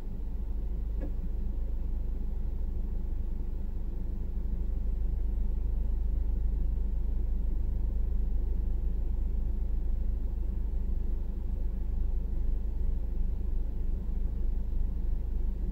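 Steady low rumble of an idling vehicle heard from inside its cabin.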